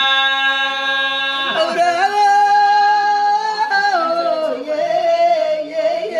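A man singing long held notes in a folk recital. He holds one note, steps up in pitch about a second and a half in, and drops back down about four seconds in to a slightly wavering note.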